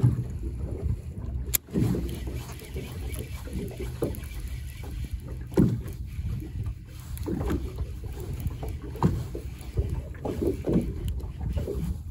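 Small waves slapping irregularly against the hull of a small drifting boat, a knock or splash every second or two, over a steady low rumble of wind on the microphone.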